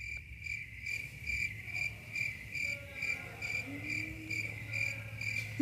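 Crickets chirping: one high chirp repeating a little over twice a second, evenly and without change, the stock 'crickets' sound effect for an awkward silence after a hard question.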